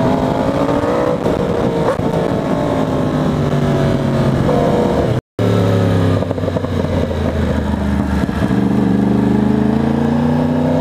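2020 Yamaha R1's crossplane inline-four engine running under way, its pitch climbing and dropping several times as the revs rise and fall. The sound cuts out for an instant about five seconds in.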